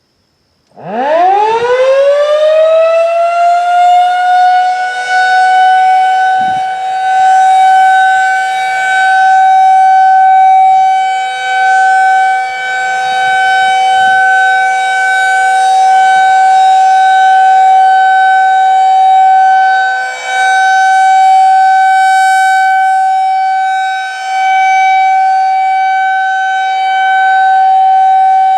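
AC-powered Federal Signal 2001-SRN rotating outdoor warning siren starting about a second in, winding up in a fast rising glide, then holding a steady single tone of about 762 Hz: the alert signal. It is loud and swells and fades slowly as the rotating head sweeps around.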